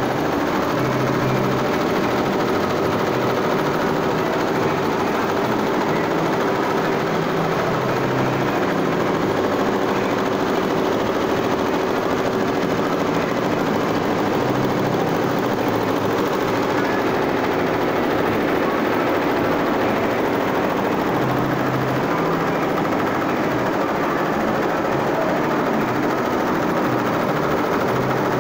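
Multi-needle embroidery machine stitching a logo into a garment: a steady, fast mechanical clatter of the needle head and moving hoop.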